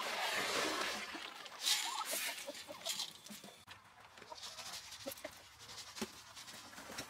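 Chicken feed pouring out of a paper sack onto the ground for about the first second and a half, then scattered rustles and crunches of footsteps on wood-chip litter, with chickens clucking now and then.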